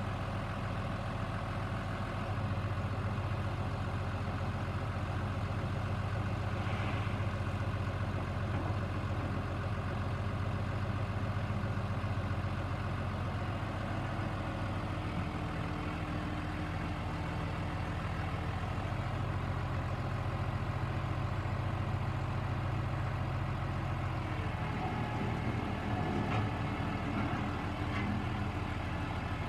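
New Holland T6050 tractor's diesel engine running steadily as its front loader lifts and curls a bucket of dirt; the engine note shifts a little about 24 seconds in.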